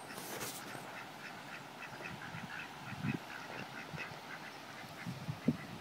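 Ducks quacking in a quick run of short calls, about five a second, that fades out a little after four seconds in. Two low thumps about three and five and a half seconds in.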